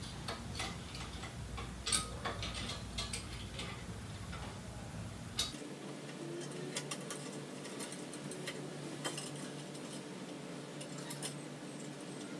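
Light, irregular metallic clicks and ticks of a hand tool turning the ICS compression bolt up through a scooter's fork into the bars, tightening the headset.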